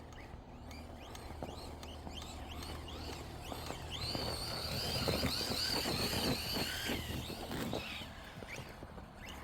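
Electric RC truck's brushless motor whining as it drives through snow, with tyres crunching. The whine comes in about four seconds in, wavers up and down with throttle, and fades near eight seconds.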